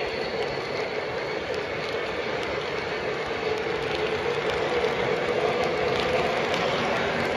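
O-scale model passenger cars rolling past close by on the track: a steady rolling rumble of metal wheels on rail, with light irregular clicks.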